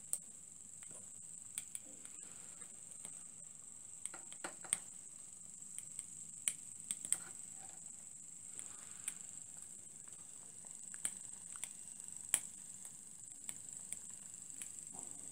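Several small homemade vertical copper-boiler steam engines running quietly: a steady high-pitched hiss with scattered light clicks and ticks.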